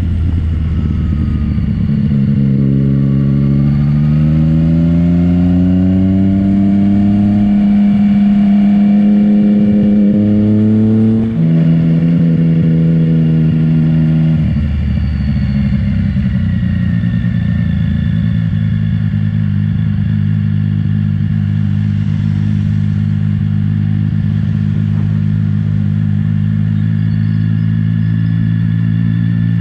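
Yamaha MT-09 three-cylinder engine running through an Akrapovic exhaust with the dB killer removed, ridden at low speed. The revs climb over a few seconds and hold, dip briefly about eleven seconds in, then fall to a steady low note as the bike rolls slowly for the rest.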